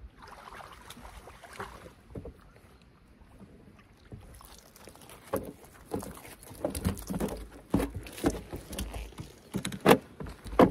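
Irregular knocks, scuffs and thumps on a floating platform's grated decking as a rainbow trout is netted and lifted aboard in a landing net. The knocking thickens from about halfway through, with two sharp, loud thumps near the end.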